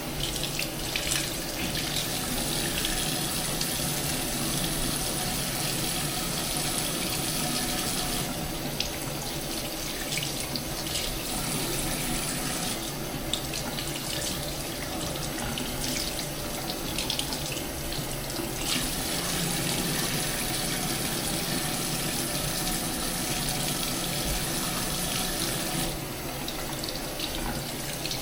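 Hot water running from a bathroom sink tap into the basin, splashing as the face is washed under it. The rush of the stream grows and softens every few seconds.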